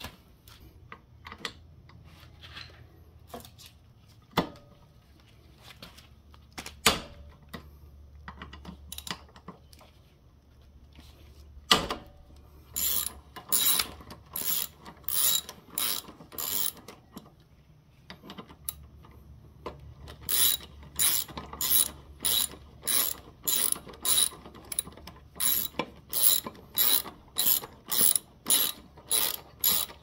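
Hand socket ratchet clicking as it turns a bolt on a motorcycle's Tokico brake caliper, undoing it to take the caliper off. It starts with a few scattered knocks and clicks of the tool being fitted, then comes in runs of ratchet strokes, ending in a steady run of about two strokes a second.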